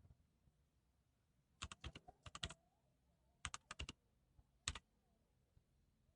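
Keys of a Z-88 backlit keyboard being typed in three short bursts: a quick run of about eight keystrokes, then about five, then a single keystroke near the end.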